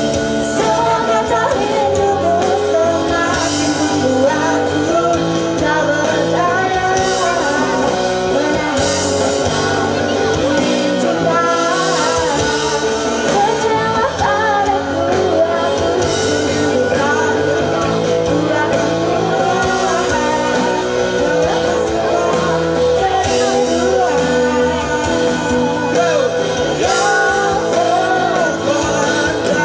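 A band playing a song with a singer's voice over it, loud and steady throughout.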